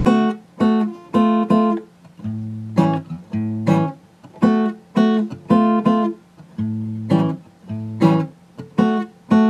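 Acoustic guitar music: chords strummed and left to ring briefly, one after another, with bass notes under some of them.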